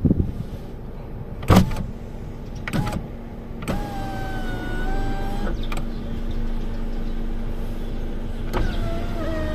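Kia Stonic's power-window motor whining steadily as the door glass moves, one run of about two seconds starting nearly four seconds in and ending in a knock as the glass stops, then a second run starting near the end. Two sharp clicks come before the first run.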